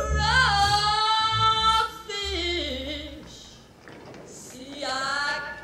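A woman singing a long, held note that then slides down in pitch, over low band accompaniment. A second sung phrase begins near the end.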